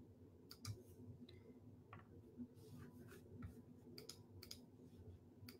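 Near silence: quiet room tone with about ten faint, scattered clicks.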